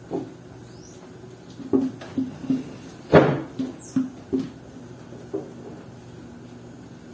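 Household items being handled at a kitchen counter: a run of short knocks and clunks, the loudest a little past three seconds in.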